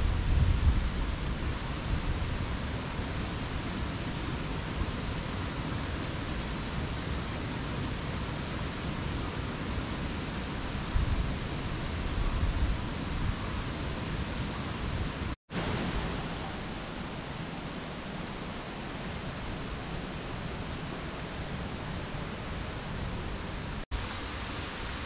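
Steady, even rushing outdoor ambience, with brief low rumbles near the start and about eleven seconds in. The sound drops out for a split second twice, once about fifteen seconds in and once near the end.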